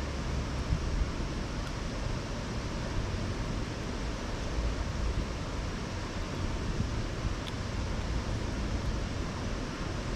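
Campfire burning: a steady rushing noise with a few faint snaps from the wood.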